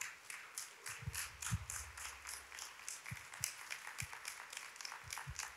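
Audience applauding, with a few low thumps from a handheld microphone being handled and set down.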